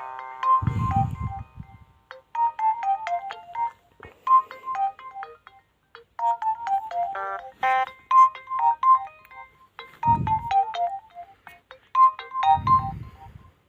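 Nokia 2680 slide phone playing a polyphonic ringtone through its small loudspeaker: a short electronic phrase of falling notes repeating about every two seconds. Three short bursts of low rumble come under it, near the start, about ten seconds in and near the end.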